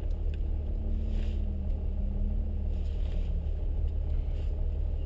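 Jeep Wrangler TJ's engine running at a steady low idle, a constant rumble heard from inside the cab.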